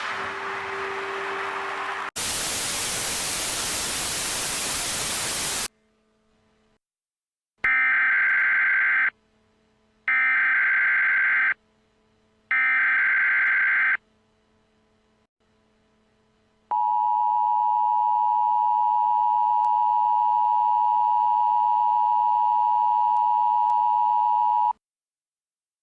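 A few seconds of loud static hiss, then an Emergency Alert System sequence: three short SAME header data bursts, about a second and a half each, followed by the steady two-tone EAS attention signal held for about eight seconds. The tones announce that an emergency alert message is about to be read.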